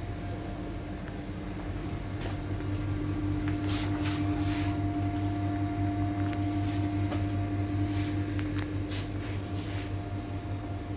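A machine's steady electric hum with a motor tone that swells for several seconds in the middle, with a few short clicks and knocks scattered through it.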